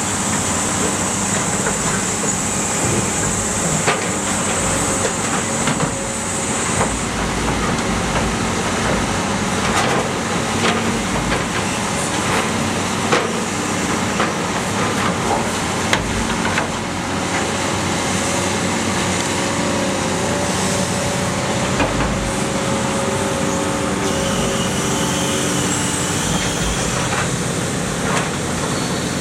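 Iron Pack scrap car baler running: a steady machine drone with held tones under it, broken by scattered sharp metal clanks and knocks. A high hiss stops about seven seconds in.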